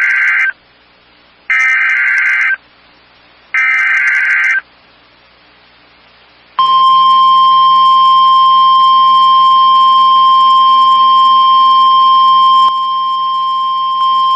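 NOAA Weather Radio alert start: the SAME data header, three one-second bursts of warbling data tones a second apart (the first ending about half a second in), then, about six and a half seconds in, the steady 1050 Hz warning alarm tone that announces a tornado warning.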